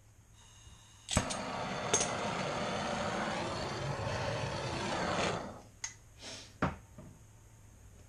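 Handheld gas torch on a yellow fuel cylinder lit with a sharp click, then a steady loud hiss of the flame for about four seconds before it is shut off. A few separate knocks follow.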